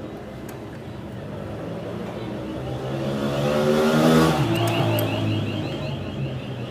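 A motor vehicle passing by: its engine grows louder to a peak about four seconds in, then drops in pitch and fades as it goes away.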